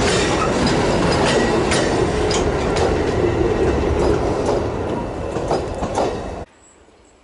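Tail end of a freight train of covered hopper wagons rolling past: a dense wheel rumble with irregular clatter of wheels over the rail joints. It fades as the last wagon goes by, then cuts off abruptly about six and a half seconds in.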